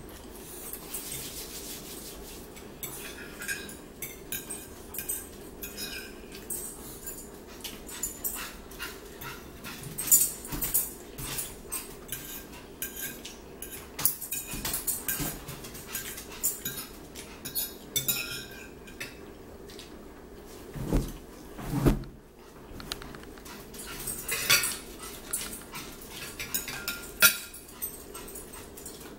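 Forks clinking and scraping on ceramic plates, with close-up chewing of bacon, eggs and toast. Two low thumps come about two-thirds of the way through.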